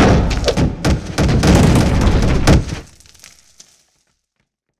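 A sound-effect crash of something shattering: a heavy boom with a run of sharp cracks and clattering fragments, dying away about three seconds in.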